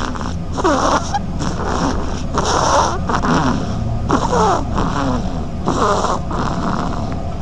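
A duckling snoring in its sleep: a run of short, wheezy snores with a falling pitch, about one every second.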